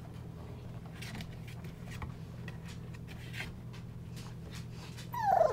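25-day-old golden retriever puppies shuffling on the whelping-box bedding: faint scratchy rustles and clicks over a steady low hum. Near the end one puppy gives a short, loud cry that falls in pitch.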